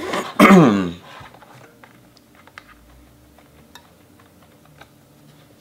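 Light scattered clicks and taps of hands feeling and wiggling the metal brackets and boards inside an opened 27-inch iMac, checking for parts still held by screws.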